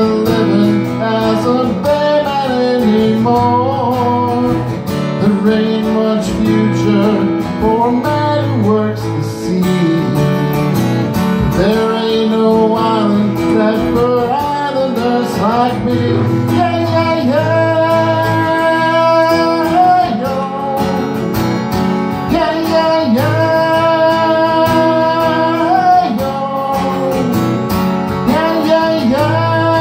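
Solo acoustic guitar strummed steadily, with a man singing long held notes over it.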